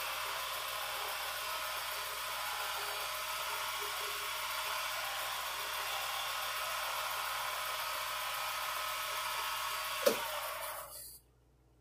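Wood lathe motor running steadily at about 2,000 RPM with a whining hiss, spinning a resin pen blank on its mandrel while it is wiped clean with a cloth. The lathe is switched off near the end and the sound dies away within about half a second.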